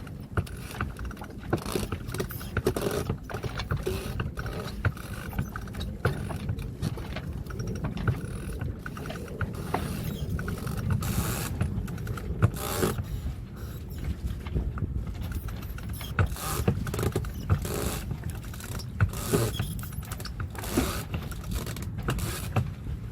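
Sailboat winch and halyard gear clicking irregularly as the line is worked to hoist a person up the mast, over a steady low rumble.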